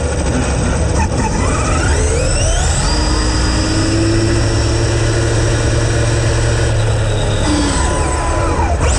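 Large RC car running fast, heard onboard: a whine that rises about a second in as it accelerates, holds steady, then drops near the end as it slows, over constant wind and road rumble.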